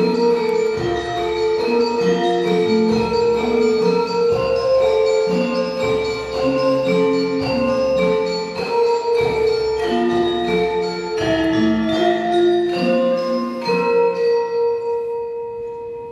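Javanese gamelan playing: many bronze metallophones and gongs struck in overlapping ringing notes. Near the end the notes thin out and the last tones ring away as the piece closes.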